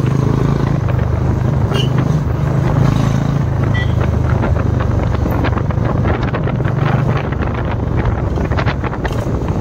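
Motorcycle engine running steadily while riding, with wind buffeting the microphone; the engine note weakens after about seven seconds.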